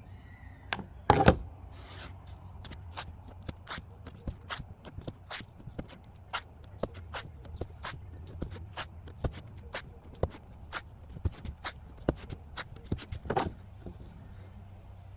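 Painter's tape being pulled off the roll and pressed onto a fiberglass deck: a loud rip about a second in, a run of sharp crackling ticks, and another rip near the end.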